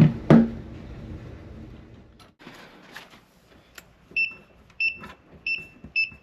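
Two sharp knocks at the start, then a few faint clicks, then an electronic safe lock's keypad beeping four times, one short high beep per key press, about two-thirds of a second apart.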